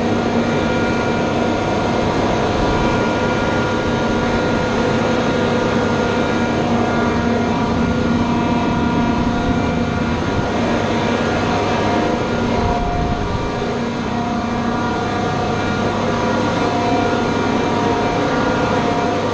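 Industrial air compressor running steadily: a constant loud mechanical drone with a whine of several steady tones over it.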